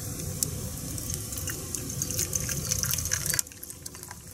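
Herbal tea poured from a glass teapot into a stainless steel cup, a stream of liquid splashing into the metal. The sound drops off sharply about three and a half seconds in.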